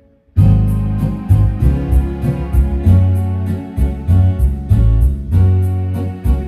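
Instrumental music with a steady beat and a bass line, starting abruptly after a brief silence about a third of a second in.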